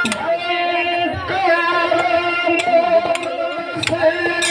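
Live Kannada dollina pada folk singing over steady held instrumental notes, with sharp percussion strikes now and then.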